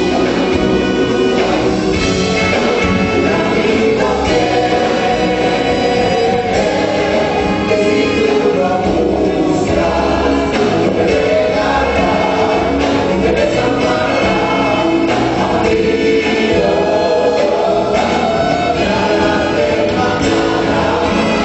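Live band and several singers performing a Spanish-language Christian song, voices singing together over a steady beat.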